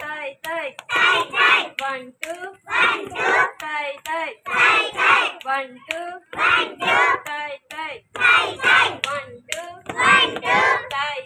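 A group of young children chanting or singing a rhyme in unison, in short phrases with a steady beat.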